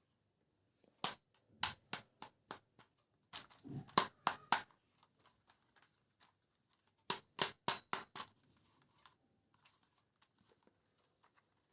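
Sharp clicks and taps of hard plastic being handled, in three short flurries of several clicks each, the busiest in the middle.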